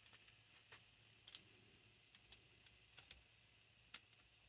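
Near silence broken by a handful of faint, sharp clicks of small metal carburetor parts and a screwdriver being handled during reassembly. The clearest come about a second and a half in and near the end.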